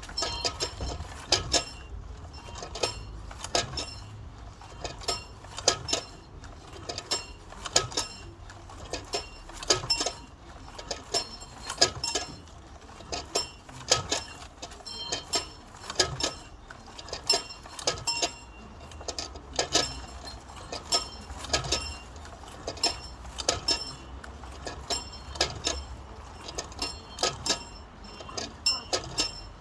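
A bell rung by pulling its rope, clanging again and again at roughly two strikes a second in an uneven rhythm, each stroke a high-pitched metallic ring.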